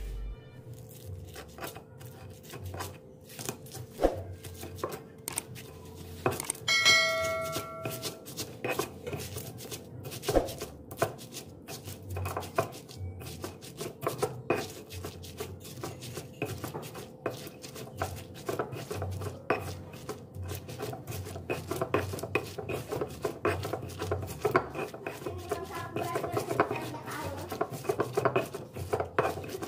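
Stone pestle (ulekan) pounding and grinding chilies, garlic and salt on a stone cobek: irregular stone-on-stone knocks and crunching scrapes, denser in the second half as the chilies are ground down. A brief ringing tone sounds once about seven seconds in.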